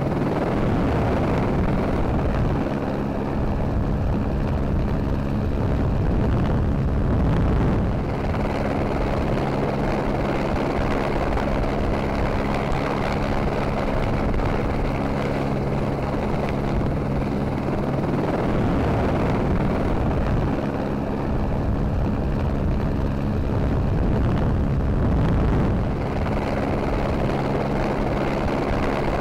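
Camera helicopter running steadily: a continuous drone of rotor and turbine noise, with low steady hum tones that fade in and out every several seconds.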